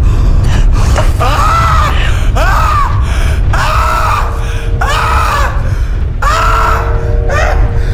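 A man wailing and sobbing in anguish, a string of rising-and-falling cries about one a second, over a steady low drone.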